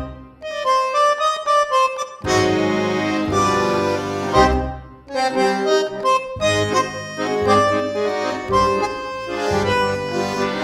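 Background music: sustained chords over a low bass line, played in phrases, with a brief drop about five seconds in.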